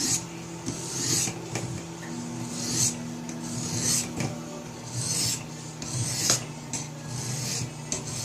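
Coarse 180-grit sharpening stone rasping along the edge of a hollow-ground knife blade, a scraping stroke about once a second as the blade is ground in both directions.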